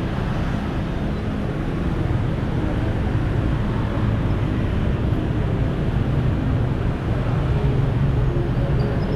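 Street traffic, a steady rumble of engines running and passing.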